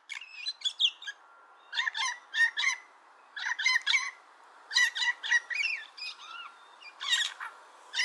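Blue jay vocalizing: a series of short, varied squeaky notes in clusters of two to four, a new cluster about every second.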